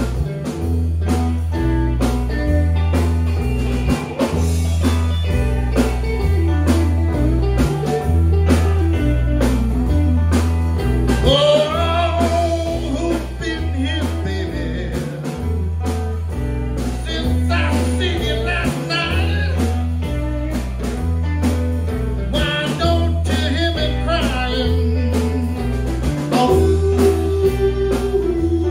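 Blues band playing live: electric guitars over an electric bass guitar holding a steady repeating bass line, with a bending lead line on top.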